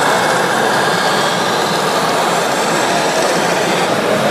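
A scale RC heavy-haulage truck's engine sound running steadily, an even, dense noise with no breaks.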